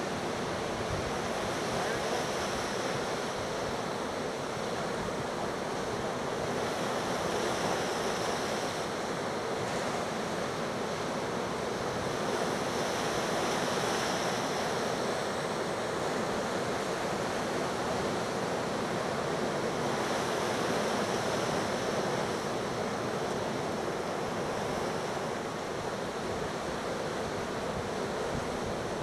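Gulf of Mexico surf breaking and washing onto the beach in a steady rush that swells every five to seven seconds as waves come in. The swell behind it is building from a distant hurricane. Wind is blowing over the microphone.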